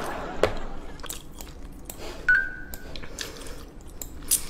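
Scattered small sharp clicks, about one a second, with a short, steady high tone a little over two seconds in.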